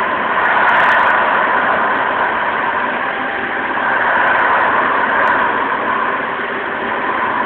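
Walk-behind floor machine running steadily as it is pushed across a concrete floor, a constant mechanical drone.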